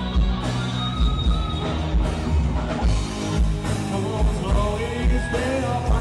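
Rock band playing live, with drum kit and guitars over a steady heavy kick-drum beat. A singer's voice comes in near the end.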